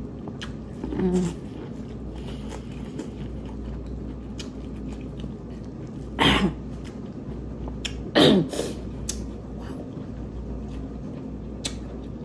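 Close-miked chewing of corn on the cob, with many small wet clicks from the mouth. About six and eight seconds in come two louder short sounds, each falling in pitch.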